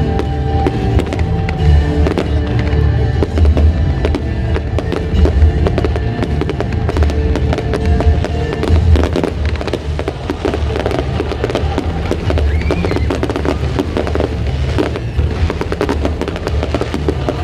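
Aerial fireworks display going off: dense crackling and popping with deep thuds throughout. Music plays alongside, clearest in the first half.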